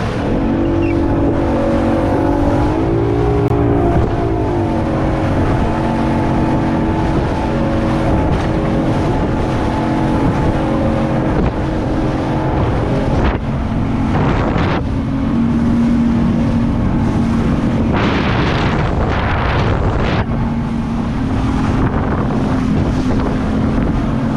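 Outboard engine of a fibreglass centre console boat running at planing speed through chop: its note rises and dips a couple of seconds in, then holds steady. Wind buffets the microphone over hull and spray noise, with two louder rushes of noise a little past halfway and about three-quarters of the way through.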